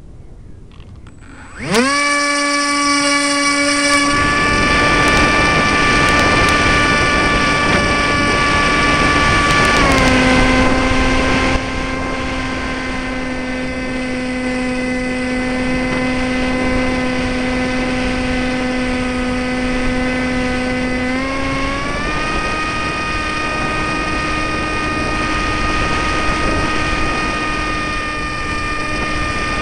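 Electric motor and propeller of an RC foam trainer plane, heard from an onboard camera. It spins up sharply about two seconds in to a steady high whine, drops a little in pitch about ten seconds in as the throttle is eased, and climbs back about twenty-two seconds in, with air rushing past the microphone in flight.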